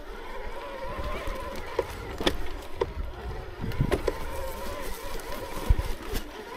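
Electric mountain bike's motor whining steadily under pedalling load, its pitch wavering slightly. Sharp knocks and rattles from the bike going over the rough trail, over a low wind rumble on the microphone.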